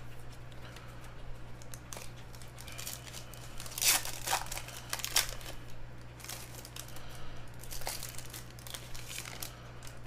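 Foil trading-card pack wrapper being torn open and crinkled by hand, in loud crackling bursts about four to five seconds in and again around eight to nine seconds in.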